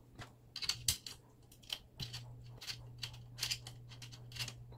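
Allen key turning an M4 screw down into the laser engraver's carriage bracket: a run of short, sharp metallic clicks and scrapes, about a dozen, irregularly spaced, over a steady low hum.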